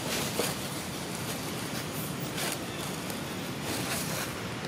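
Steady outdoor background noise with a few faint brief rustles.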